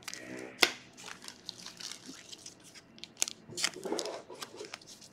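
Foil wrapper of a Panini Select trading-card pack crinkling and crackling as it is handled and opened, with a few sharp crackles scattered through.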